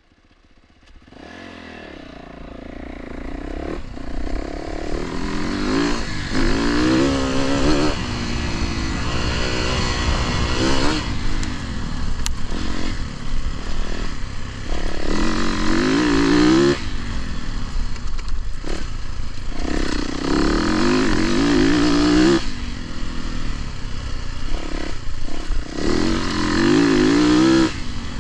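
Dirt bike engine being ridden hard, revving up with a rising pitch and backing off again, over and over. It fades in over the first few seconds.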